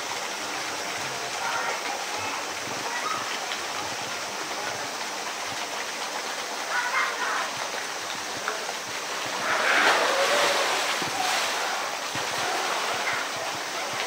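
Steady rush of running water, with a louder splash about ten seconds in as a polar bear plunges into its pool.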